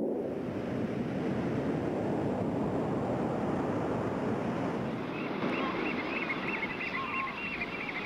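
Steady rush of sea surf and wind. A faint, high, wavering sound joins about five seconds in.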